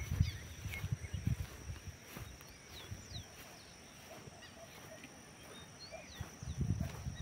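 Birds calling with short, high, downward-sliding chirps scattered through, over a steady high-pitched whine. Low rumbling bursts at the start and again near the end.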